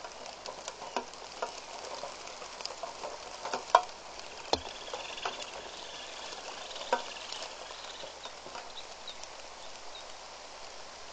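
Steady rain, with irregular sharp taps of drops landing close by; the loudest tap comes about four seconds in.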